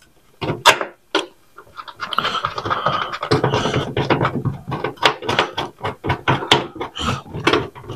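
Hand work fitting a grill clamp and bolt into a 1947 Ford's fender: a few scattered clicks, then from about two seconds in a dense run of irregular clicks, taps and rustling as parts and tools are worked into place.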